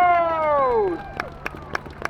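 BAE Hawk T1 jet's Adour turbofan whining past, its pitch falling steeply as the jet flies away, fading out about a second in. Scattered sharp claps follow over a low steady hum.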